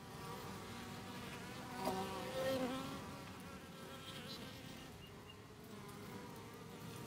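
Honeybees buzzing around the hive, a faint wavering hum of wingbeats that swells briefly about two seconds in.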